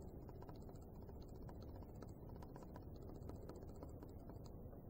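Faint room tone: a low steady hum with a few light clicks about two to three and a half seconds in.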